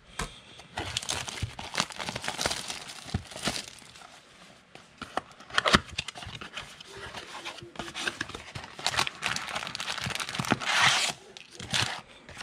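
Foil and plastic wrappers of trading-card packs being torn open and crumpled by hand, a steady crinkling with many small clicks and knocks, denser for a moment near the end.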